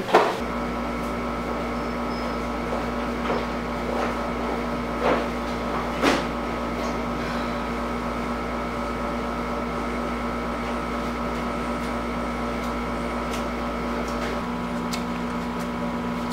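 Steady machine-like hum made of several fixed tones over a noisy bed, with a few light knocks in the first six seconds. Its deepest part drops away near the end.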